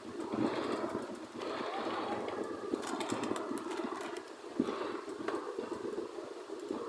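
Robot sound effect: a mechanical whirring with swells every second or so and many sharp clicks and clanks.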